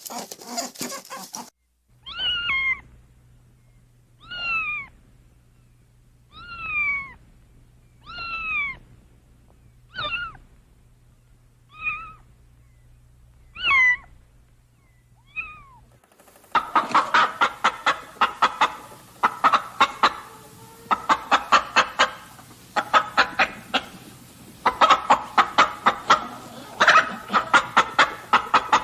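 An animal gives about eight short calls, each sliding down in pitch, roughly two seconds apart. From about halfway through, a rapid clicking chatter follows in dense runs.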